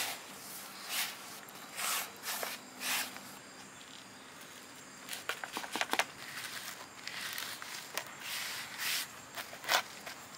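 Hand scooping and rubbing a damp salt-and-flour paste over a whole fish on a metal plate: short gritty scrapes and crunches, a few spaced ones at first, then coming more often from about halfway through.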